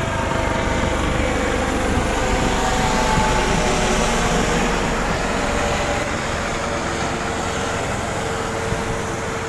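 Remote-controlled model airplane's motor droning as it flies by, its pitch shifting slightly as it passes, over steady wind and surf noise. It grows louder for the first few seconds, then eases off.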